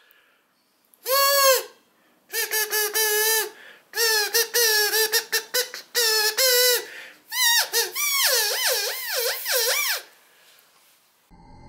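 Wooden Elk Reel cow elk call with a latex reed, blown by mouth: elk mews, a single one first, then runs of short chirps and longer mews, and near the end quick wavering mews. Music comes in just before the end.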